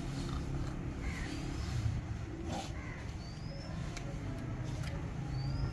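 Steady low rumble of wind on the microphone, with birds calling in short rising chirps every second or so, and a few light clicks.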